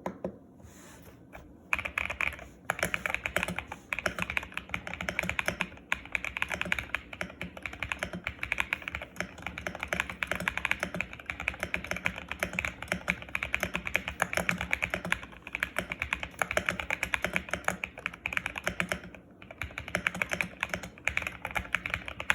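Custom mechanical keyboard, built on a GMK67 case with lubed Akko Piano V3 switches and PBT double-shot keycaps, being typed on fast and continuously: a dense run of keystroke clacks. There are short breaks just after the start and a couple of seconds before the end.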